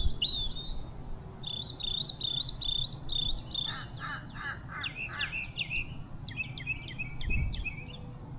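Birds singing: quick series of repeated high chirps, with a louder, harsher run of calls about four seconds in, over a low steady rumble.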